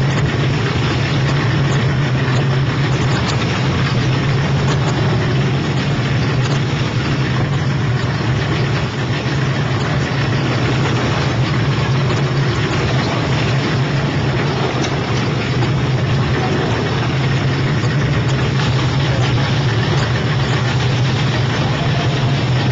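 Engine of a small patrol boat running steadily at a constant pitch, heard from on board, under a steady rushing hiss.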